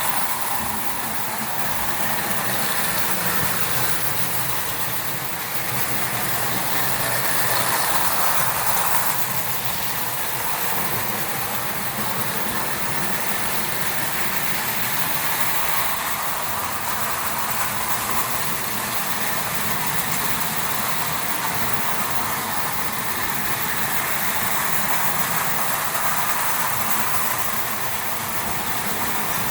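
Three vintage Marx Commodore Vanderbilt O gauge toy locomotives running together on metal track. The small electric motors and wheels on the rails make a steady rattling whir that swells a little and fades back.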